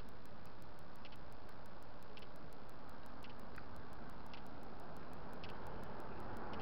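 Steady road noise while walking with a body-worn camera, with a light click about once a second in time with the stride over a fast, even, high-pitched ticking. A vehicle grows louder near the end.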